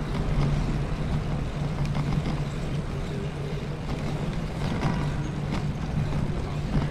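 Bicycle rolling over paving stones, picked up through the bike-mounted camera as a steady low rumble and hum of tyres and frame vibration, with a few light rattles.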